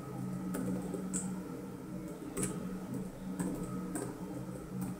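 Computer keyboard keystrokes: scattered, irregular key presses typing an email address into a login field, over a steady low hum.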